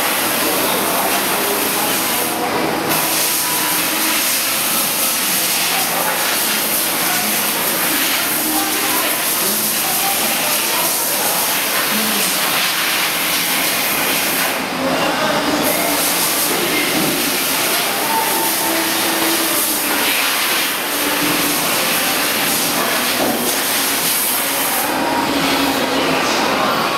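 Steady, loud industrial machinery noise with a strong hiss, without a clear rhythm or pitch, dipping briefly in the high hiss twice.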